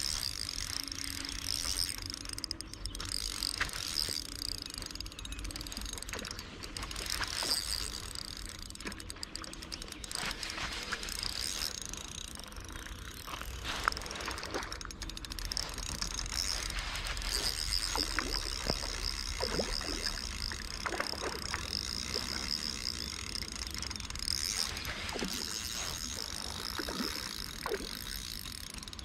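Spinning reel being cranked on an ultralight rod, its gears whirring steadily as line is wound in, with small clicks from handling the reel.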